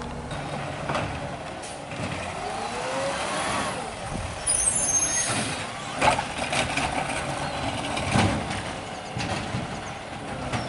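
Peterbilt 520 garbage truck running as it drives up the street, its engine note rising as it pulls away about a third of the way in. A loud air brake hiss comes near the middle, followed by two shorter sharp hisses about six and eight seconds in.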